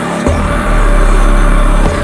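Loud electronic music: a very deep sustained bass note comes in about a quarter second in and cuts off near the end, over a dense, noisy texture with a steady high tone.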